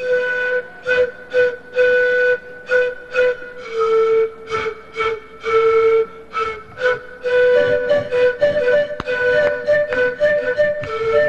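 A Latin American folk instrument ensemble starts playing, led by a flute melody of short, detached notes; about eight seconds in, a second higher line joins in harmony.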